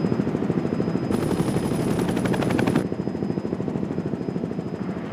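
Helicopter rotor chopping steadily in flight as the helicopter climbs. A high hiss rides over it for a second or two, starting about a second in.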